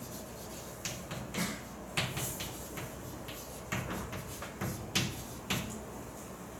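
A string of light, irregular clicks and knocks, about ten in all and unevenly spaced, over steady room noise.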